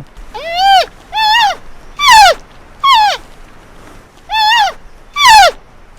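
Giant panda calling: a series of six short, high, bleat-like calls, each rising then falling in pitch, with a longer pause about midway.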